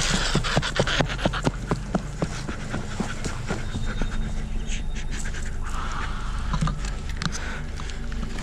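Irregular sharp clicks and snaps, several a second for the first four seconds and sparser after that, over a steady low hum and hiss.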